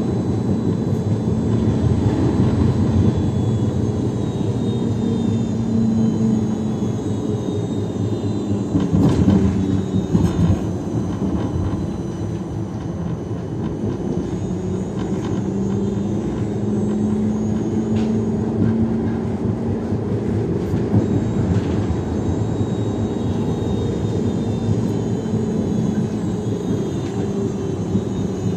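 Siemens Combino Plus low-floor tram running, a steady rumble of wheels on rail with a low hum that swells and fades several times and faint high motor whine shifting in pitch. A couple of sharp knocks about nine to ten seconds in are the loudest moments.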